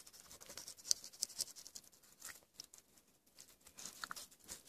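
Knife tip cutting around and lifting out a walleye cheek: faint crackly clicks and scrapes of the blade through the fish's skin and flesh, bunching about a second in and again near the end.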